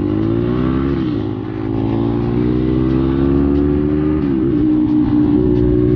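Dirt bike engine accelerating under the rider, its pitch rising and dropping sharply twice as it shifts up a gear, about a second in and about four seconds in, then holding steady at speed.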